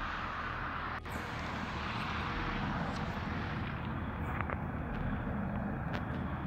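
A steady rushing noise with no distinct events, its hiss thinning about four seconds in, and a single sharp click about a second in.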